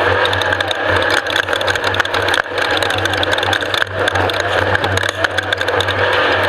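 Off-road race vehicle's engine running steadily, with many rapid rattles and knocks over it.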